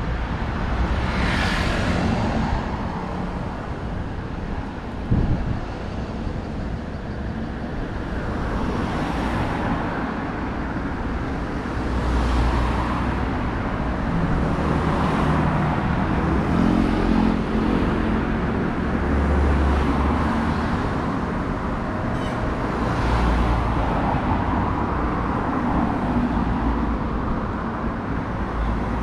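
Street traffic: cars passing one after another, several swells of tyre and engine noise a few seconds apart over a steady low rumble, with a single sharp knock about five seconds in.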